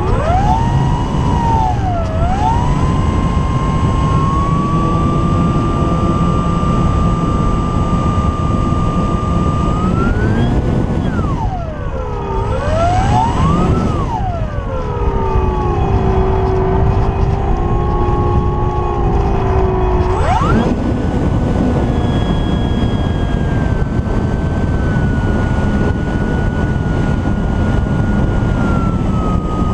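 Electric motor and propeller of an Apprentice S 15e RC trainer plane whining in flight over a dense rush of airflow. The pitch holds steady at first, then swoops down and back up twice in the middle, then jumps up sharply about two-thirds through as the throttle and load change.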